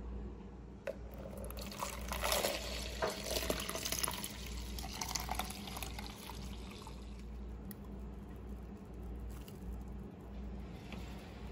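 Heated milk poured from a pot into a plastic tub, splashing and filling. It is loudest a couple of seconds in and then tails off to a quieter trickle.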